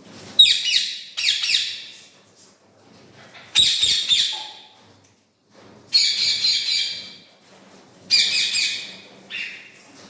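Indian ringneck parakeets calling: five loud calls of about a second each, a second or two apart, with a shorter call near the end.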